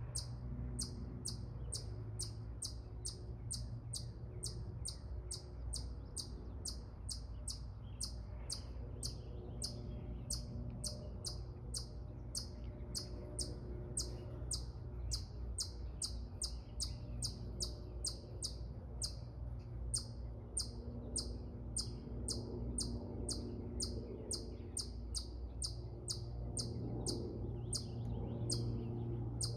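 A short, high-pitched chirp call repeated very steadily, about two a second, without a break, over a faint low steady rumble.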